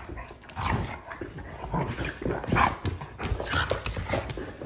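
A small dog and a chocolate Labrador retriever play-fighting: dog vocal sounds mixed with irregular scuffling and knocks of bodies and paws on a rug.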